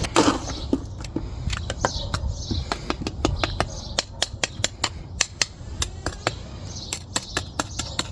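Sharp, irregular clicks and taps of stones and a tool being worked into wet cement around a post's footing, coming thickest in the second half. Small birds chirp faintly in the background.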